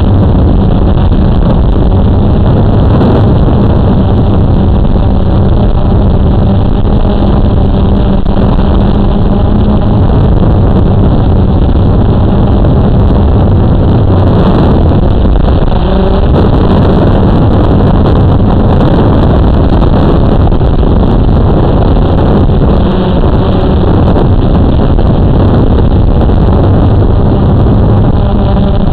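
Blade 350QX2 quadcopter's electric motors and propellers running in hover, a loud steady hum with a few held tones that drift slightly in pitch over a rushing noise, heard through the drone's own onboard camera.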